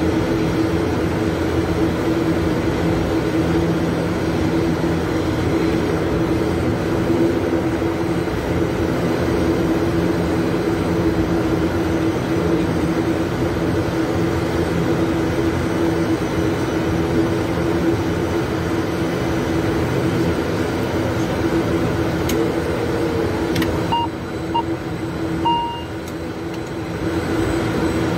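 ATR 72-600's Pratt & Whitney PW127M turboprop engines and propellers running at low taxi power, heard from the cockpit as a steady drone with a constant hum. The drone eases slightly near the end, where a few short electronic beeps sound.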